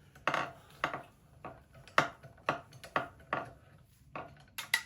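Irregular metallic clinks and taps of a spanner working the conrod big-end nut on a Petter A1 stationary engine, about a dozen spread out, with two sharp ones close together near the end.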